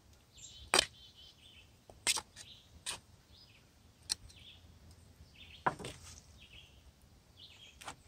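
A metal utensil clinking against a stainless steel bowl, six or seven sharp clinks spaced out as grilled beef pieces are lifted onto a bun. Faint bird chirps in the background.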